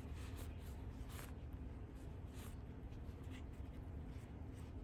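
Faint scratchy rubbing of a crochet hook and cotton yarn being worked through crocheted stitches, a few soft irregular strokes over a low steady background.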